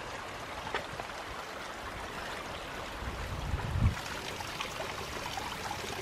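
A tiny, shallow stream babbling over small rocks, a steady trickling rush of water. A soft low thump about four seconds in.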